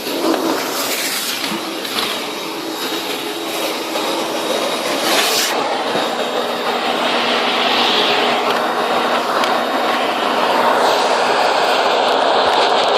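Kenmore Progressive vacuum cleaner running with a steady noise. About halfway through its sound changes: the highest hiss drops away and the middle of the sound grows stronger.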